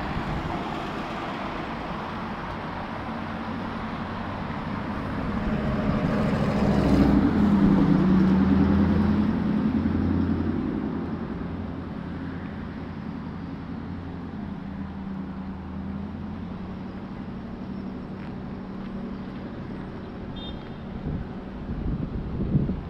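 Road traffic with a motor vehicle's engine growing louder and fading as it passes, loudest about seven to ten seconds in.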